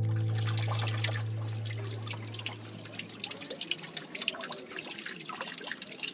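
Thin streams of water trickling and dripping from a stone wall fountain's basin lip, a light patter of drips over a soft splash. A held note of background music fades out over the first few seconds.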